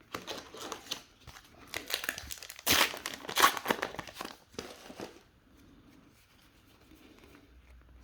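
Trading card booster pack wrapper being torn open and crinkled by hand, a dense crackling that is loudest about three seconds in and stops about five seconds in.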